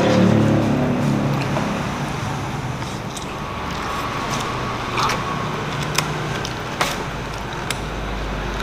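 Steady hum of a motor vehicle engine and street traffic, swelling slightly near the end, with a few light clicks from eating utensils as noodles are eaten.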